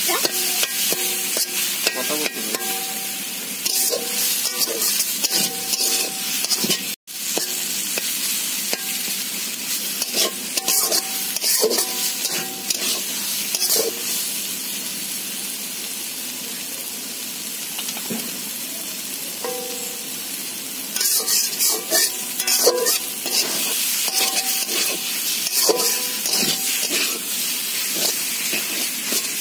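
Metal spatula stirring and scraping taro leaves and prawns around a metal karahi over a steady frying sizzle, each stroke drawing short metallic ringing tones from the pan.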